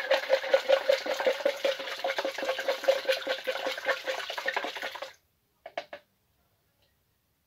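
A metal spoon stirring priming sugar into hot water in a plastic measuring jug, dissolving it: a fast, even swish and scrape at about four strokes a second. The stirring stops suddenly about five seconds in, followed by two short taps.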